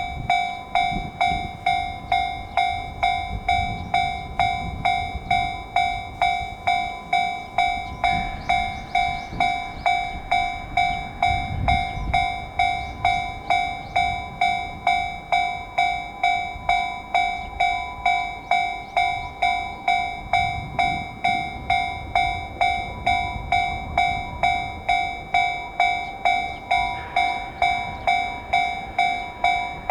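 Japanese level crossing warning bell ringing, an electronic ding-ding repeated about one and a half to two times a second without a break, signalling an approaching train.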